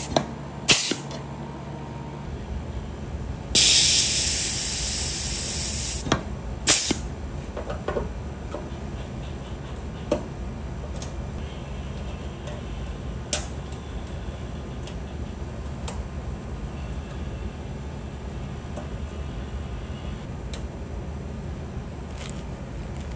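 Pneumatic rivet squeezer setting flush rivets on nutplates in an aluminium wing spar: a sharp snap about a second in, a hiss of air lasting about two seconds, then two more snaps around six to seven seconds. After that there are only faint, scattered clicks of small parts being handled.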